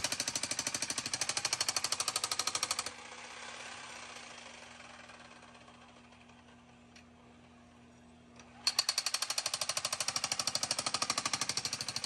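Jackhammer pounding into hard clay soil in a rapid, even hammering. It stops about three seconds in and starts up again after a pause of about six seconds.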